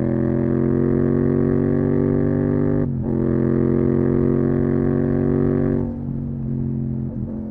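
Yamaha MT-07's parallel-twin engine pulling steadily through a full Akrapovic titanium exhaust, its pitch climbing slowly. There is a brief dip about three seconds in, and the throttle eases off about six seconds in, leaving a quieter, lower note.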